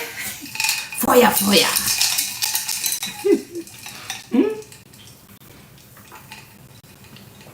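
Dishes and kitchenware clinking and clattering as they are handled, busiest in the first few seconds and quieter after about five seconds.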